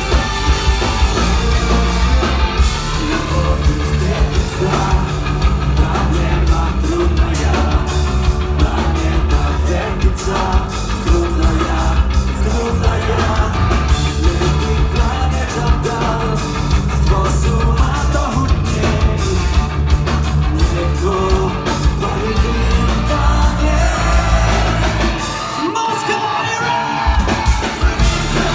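Punk-rock band playing with drums, guitars and sung vocals. The bass and drums drop out briefly near the end, then come back in.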